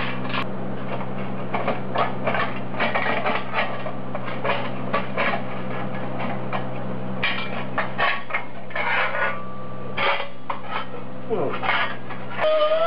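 Hand work on thin stainless sheet metal: bolts being undone with a ratchet and a stainless steel turbo heat shield being worked loose and slid off the turbine housing, giving irregular clinks, taps and scrapes over a steady low hum. Music comes in at the very end.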